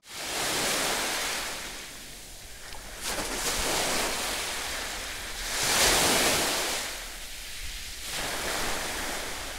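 Small sea waves washing onto a beach, the surf rising and falling every two to three seconds.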